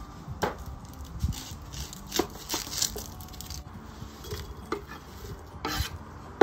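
Kitchen knife striking and scraping on a wooden cutting board as red onion is sliced and the slices are scraped off into a glass bowl: a string of separate, unevenly spaced strokes and short scrapes.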